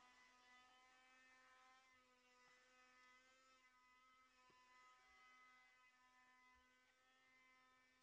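Very faint, steady hum of a small corded handheld vacuum cleaner's motor as it picks up sawdust, its pitch wavering slightly.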